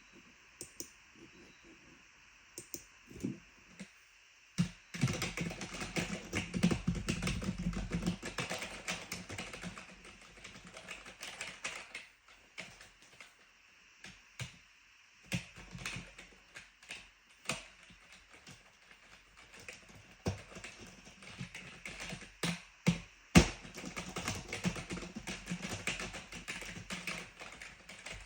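Typing on a clicky keyboard: a few separate key clicks at first, then fast runs of typing about five seconds in and again near the end, with slower, scattered keystrokes between them.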